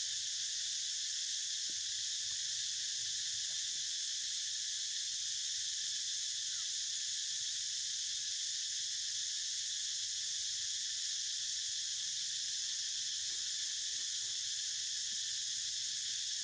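Steady, high-pitched drone of an insect chorus, an even hiss that does not change.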